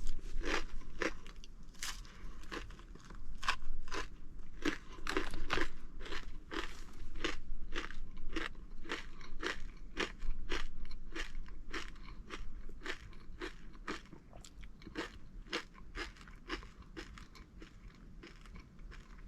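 Close-up chewing of a crunchy MRE cracker topped with a macaroni, cheese and corn-nugget mixture: steady crunching at about two chews a second, growing fainter over the last few seconds.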